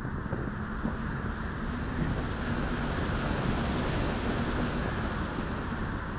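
Strong wind blowing across the microphone: a steady rushing hiss that grows brighter and a little louder through the middle.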